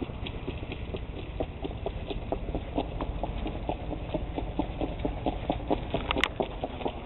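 Hoofbeats of a Standardbred horse on a dirt training track as it pulls a jog cart at speed: a steady rhythm of strikes that grows louder toward the end as the horse comes nearer.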